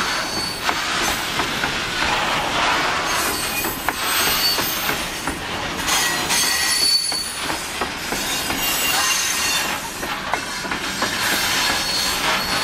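Loaded grain hopper wagons of a freight train rolling past close by: a steady rumble of steel wheels on rail, with clicks over the rail joints and thin, high wheel squeals that come and go.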